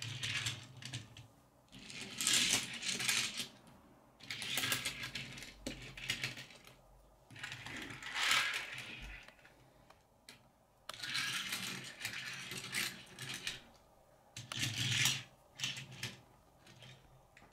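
Majorette die-cast metal toy cars being pushed and rolled by hand across a wooden tabletop: several short rolling, clicking runs of a second or so each, with pauses between them.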